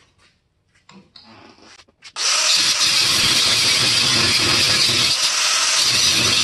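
A handheld power grinder with an abrasive cut-off wheel starts about two seconds in and then cuts steadily into steel, a loud, even, hissing grind. It is cutting off a carriage bolt whose head spins, so the nut can't be undone.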